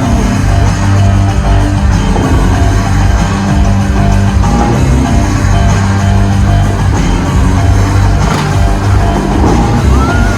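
Loud music with a heavy, steady low end, the kind of soundtrack the Dubai Fountain's jets are choreographed to.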